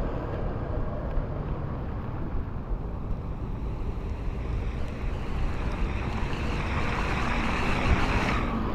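Wind buffeting the microphone and road noise from cycling through wet city streets, with a hiss that grows louder over the last few seconds and then drops off suddenly.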